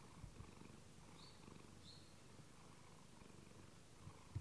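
Domestic cat purring faintly, a soft rapid pulsing rumble, with a brief thump near the end.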